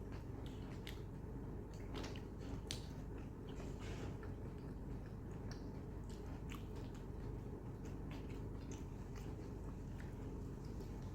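Close-up eating sounds: wet chewing and lip smacks from someone eating mutton fat and curry-soaked roti, with scattered sharp clicks over a steady low hum.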